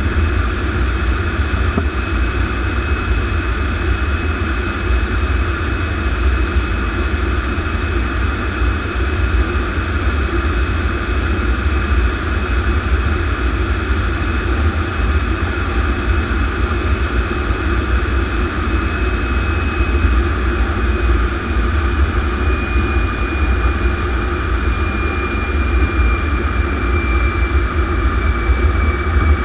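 T-33 jet trainer's turbojet engine running at taxi power, heard from the open cockpit as a steady high whine over a heavy low rumble. The whine slowly drops in pitch over the last several seconds.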